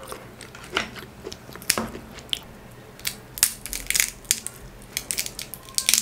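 Cooked crab shell being cracked and pulled apart by hand, an irregular string of sharp cracks and snaps.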